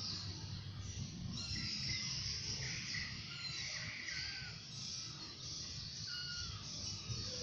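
Scattered faint, short, high calls of small animals over a steady low background hum.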